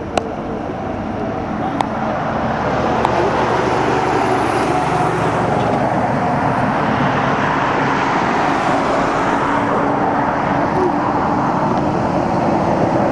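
Boeing 737 Classic's CFM56 jet engines running at high power as the airliner rolls along the runway: a steady roar with a faint whine in it, growing louder over the first three or four seconds and then holding.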